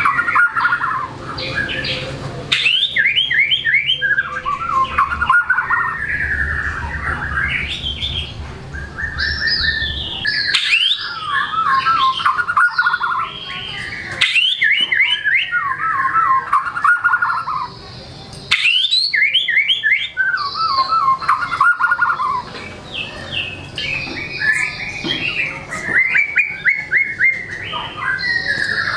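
White-rumped shama (murai batu) in full song, running through its repertoire of imitated material: varied phrases of fast whistled and chattering notes, one after another with short gaps between them.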